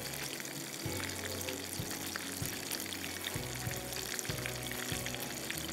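Battered red snapper fillets shallow-frying in a pan of hot oil, a steady bubbling sizzle, under background music.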